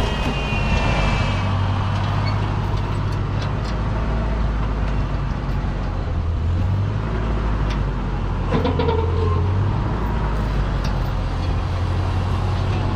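Ford 8N tractor's four-cylinder engine running steadily as the tractor and its Dearborn loader move about. Occasional knocks and rattles come through, the loudest about eight or nine seconds in.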